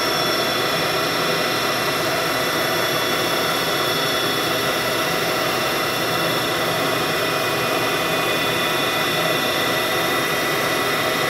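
Haas VF-4 CNC vertical mill's spindle running steadily at 2,000 RPM through its 2-speed gearbox, just after the gearbox has shifted. It makes a steady whine with several high tones over a hiss.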